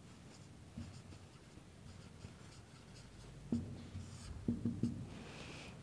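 Marker pen writing on a whiteboard: faint scratching strokes, with a few short sharper taps a little past halfway.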